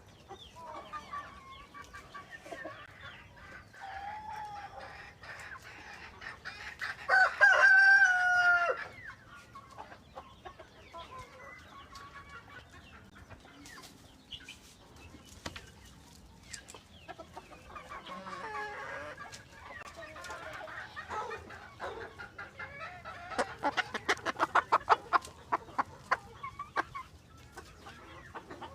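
Backyard chickens calling: a rooster crows loudly about seven seconds in, hens cluck throughout, and a quick run of rapid clucks comes near the end.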